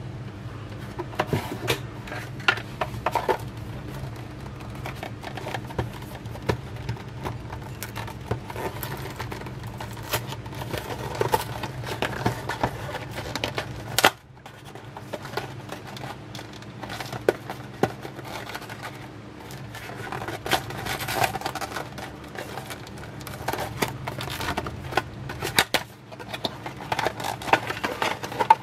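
Irregular clicks, taps and scrapes of fingers handling a small plastic Bluetooth headset, over a steady low hum. There is a sharper click about halfway through.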